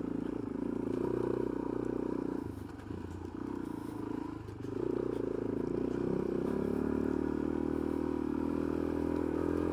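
A 2005 Suzuki DRZ400S's single-cylinder four-stroke engine runs as the bike is ridden along a dirt trail. The engine sound drops away briefly a couple of times around the middle, then runs steady.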